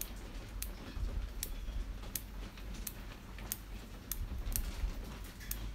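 Ratchet mechanism of an Olsa Tools 1/4-inch drive click-type torque wrench turned slowly by hand, its pawl clicking over the gear teeth. About ten light, separate clicks, spaced half a second or more apart.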